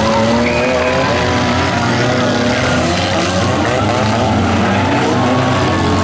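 Several democross cars racing around a dirt track together, their engines revving with pitches rising and falling over one another.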